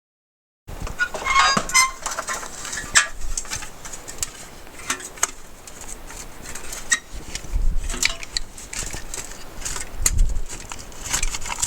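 Dead silence for under a second, then irregular clicks, knocks and scraping as the metal parts of a corroded Apple II floppy drive are handled and pried apart, with a few short squeaks early on.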